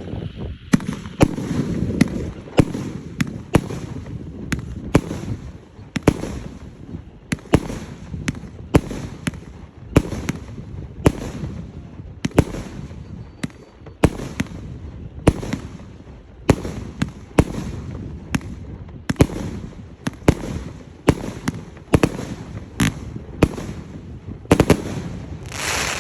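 A 25-shot consumer fireworks cake with 1.2-inch tubes firing shot after shot: sharp bangs about one or two a second, with a rumble and crackle between them. There is a longer, louder burst near the end.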